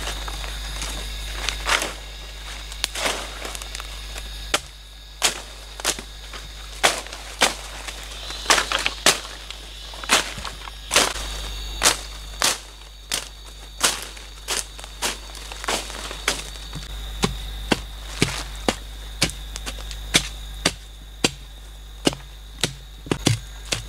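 A hand digging tool repeatedly chopping into the soil of the forest floor, sharp blows at an uneven pace of roughly one to two a second, with a faint steady high tone behind them.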